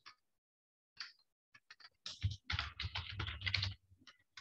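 Typing on a computer keyboard: a few scattered keystrokes, then a fast run of keystrokes for about two seconds midway.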